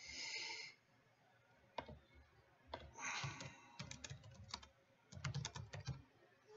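Faint typing on a computer keyboard: clusters of quick key clicks, with a couple of short bursts of hiss.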